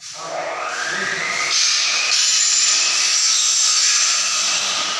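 A power tool running, with a whine that rises in pitch over the first second or so and then holds steady over a loud hiss.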